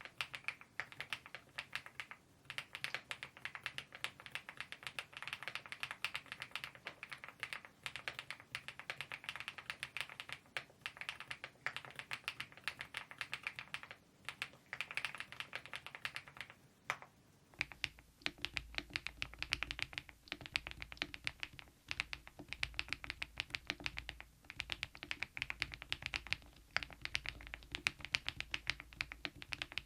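Fast, continuous typing on a mechanical keyboard fitted with KeyTok Godzilla dye-sublimation keycaps (their own smile profile). There is a short break about 17 seconds in, after which the typing resumes over a steady low hum.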